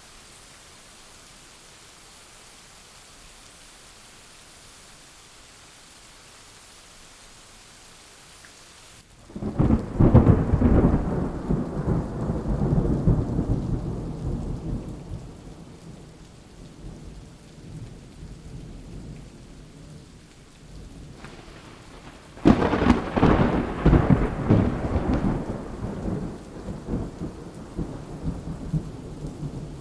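Rainstorm: a steady hiss of rain, then two long rolls of thunder, the first about a third of the way in and the second about two-thirds in, each rumbling loudly for several seconds before fading under the rain.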